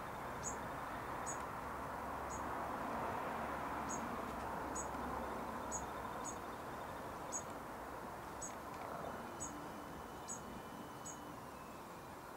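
Young dunnock's short, very high-pitched call notes, repeated about once a second, over a steady background of outdoor noise.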